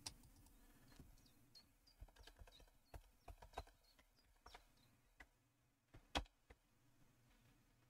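Faint, irregular computer keyboard key clicks, a few at a time, with one louder click about six seconds in.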